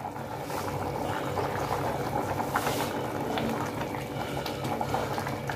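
Rice in fish stock at a rolling boil in a wide pan, bubbling and popping steadily: the rice has come back to the boil. In the second half a metal spoon stirs through it.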